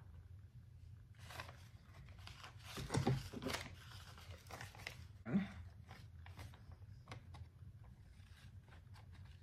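Paper and craft materials being handled at a work table: light rustling and small clicks, with a louder crinkling cluster about three seconds in and a short low sound just after five seconds, over a faint steady hum.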